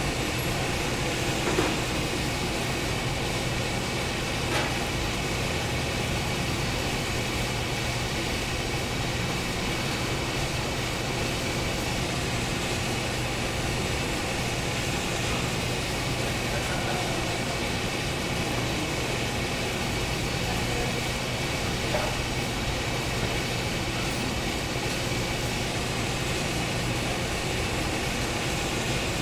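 Steady drone of factory machinery with a constant low hum and a few faint knocks.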